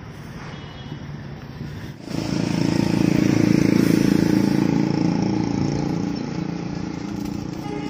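A motor vehicle's engine running, much louder from about two seconds in and then slowly easing off.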